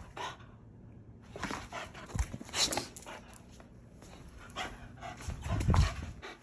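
Staffordshire Bull Terrier making excited greeting noises in a string of short, irregular bursts, with a couple of dull thumps, the louder one near the end.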